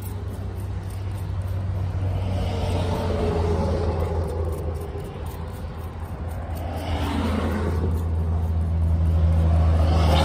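Passing road traffic: a low vehicle rumble that swells twice, about three seconds in and again near the end, as cars go by.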